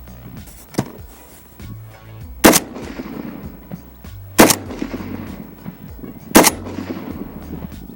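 Semi-automatic 7.62x39 AK-pattern rifle (PSA-K 47) fired in slow, aimed single shots: three shots about two seconds apart, each trailing off in echo, with a fourth near the end.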